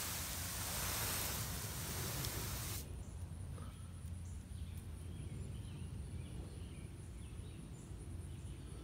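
Sprayer hissing out a steady jet of liquid insecticide that cuts off sharply about three seconds in. After that there is only faint outdoor background with a thin, steady high whine.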